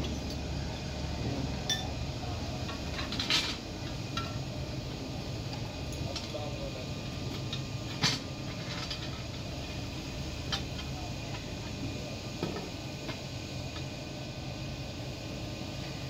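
Stick (arc) welding on a small steel part: the electric arc crackling steadily over a low steady hum, with a few sharp metallic clinks, the loudest about three and eight seconds in.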